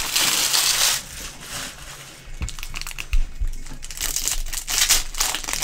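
Foil trading-card pack wrapper crinkling as it is crumpled, loudest for about the first second. After that comes quieter rustling and light clicks as the stack of cards from the pack is handled and flicked through.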